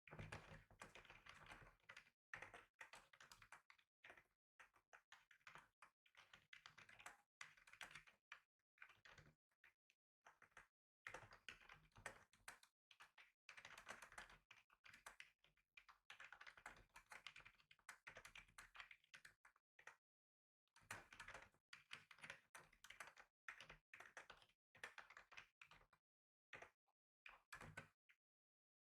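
Faint typing on a computer keyboard: quick runs of key clicks, broken by short pauses twice.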